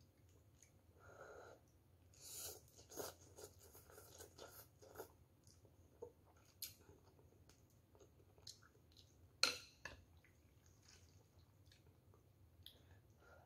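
Faint sounds of a person eating noodles: slurping and chewing, with scattered clicks of wooden chopsticks and a metal spoon against the bowl. The sharpest click comes about two-thirds of the way through.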